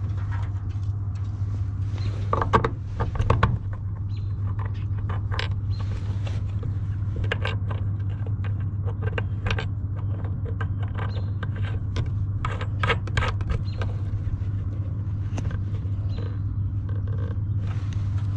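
Clicks, knocks and rattles of hands working a plastic electrical box on a galvanized sheet-metal panel, the sharpest knocks about two to three and a half seconds in and again around thirteen seconds, over a steady low machine hum.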